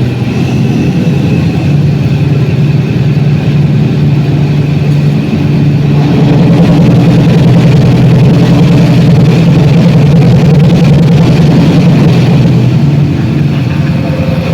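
Diesel-electric locomotive engine running steadily under way, heard from inside the cab, a deep even drone that grows a little louder about six seconds in.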